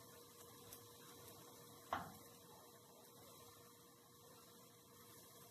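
Near silence: a faint steady hum, with one short click about two seconds in.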